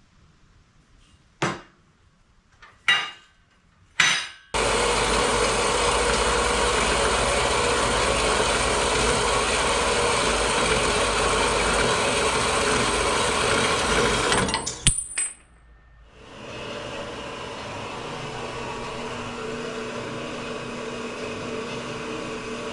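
A few sharp knocks as steel tubing is set up, then a power tool cutting the steel round tubing at a 45-degree angle, running steadily for about ten seconds and stopping abruptly with a couple of clicks. A quieter steady hum follows.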